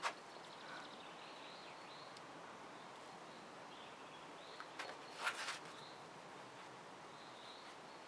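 Quiet woodland ambience with small birds chirping now and then. A sharp click comes at the very start, and two short hissing noises about five seconds in come from the climber moving on the sandstone boulder.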